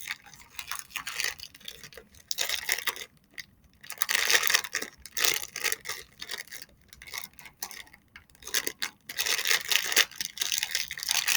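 Toy packaging being handled and pulled at by hand, crinkling and rustling in irregular bursts with short pauses, as someone tries to tear open a package that won't give.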